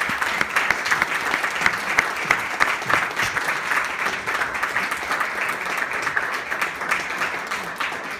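Theatre audience applauding: many hands clapping in a dense, steady patter that eases slightly near the end.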